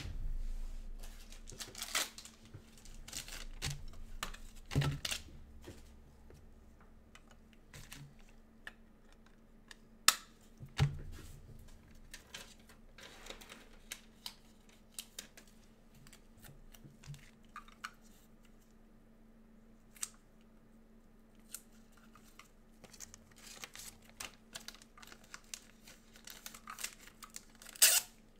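Handling noise at a desk: rustling of cards and plastic for the first five seconds or so, a couple of sharp taps about ten seconds in, then scattered clicks that thicken into a quick run near the end.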